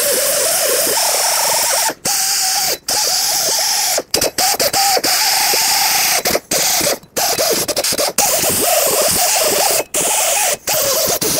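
Die grinder with a small sanding disc grinding surface rust off a steel axle hub flange: a loud hissing whine whose pitch wavers as the disc loads against the metal. It is cut off briefly about seven times as the trigger is let go and pressed again.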